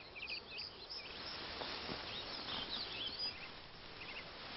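Faint chirping of small birds, many short quick calls, over a steady background hiss.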